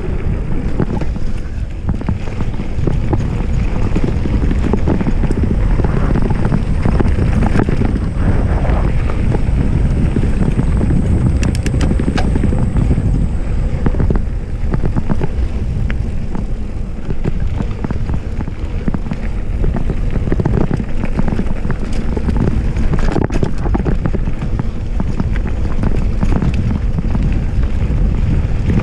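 Wind on a GoPro Hero 5 Session's microphone mixed with the rumble of a Polygon Siskiu D5 mountain bike's tyres rolling fast over a dirt trail. The noise is loud and steady throughout, with a cluster of sharp rattling clicks about eleven to twelve seconds in.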